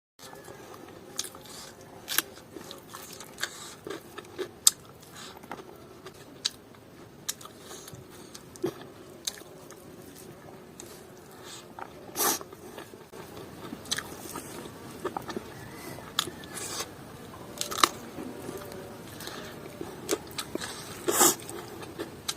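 Close-miked eating: a person chewing and biting food, with a run of small sharp mouth clicks and a few louder crunching bites about halfway through and near the end.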